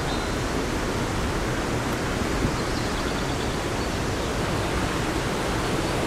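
Rushing water of a fast-flowing glen river with its waterfall: a steady, even rushing hiss that does not change.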